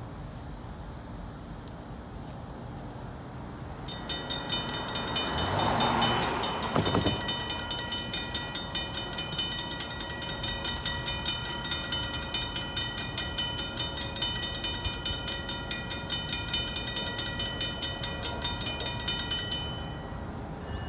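Crossing activating: the Safetran mechanical crossing bells start ringing about four seconds in, a rapid, steady, repeating ring, and stop near the end as the gate arms come down. A brief louder rushing swell rises over the bells about six seconds in.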